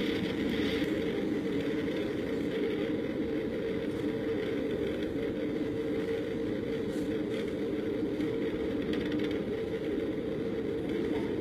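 Light-sport aircraft in flight: a steady drone of engine and rushing air, with no sudden bang or change.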